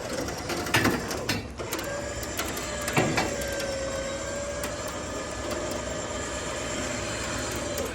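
Electric trailer winch motor running steadily under load as it pulls a non-running truck, starting after a few clicks and with one knock about three seconds in.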